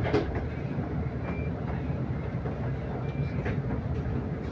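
Inside a moving double-decker bus: the steady low rumble of the engine and road noise, with a click near the start. Two short, faint, high beeps come about a second in and about three seconds in.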